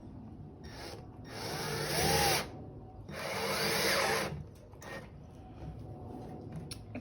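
Milwaukee drill driving a screw into wood through a pilot hole, running in a short blip and then two longer bursts of about a second each, its motor pitch shifting under load.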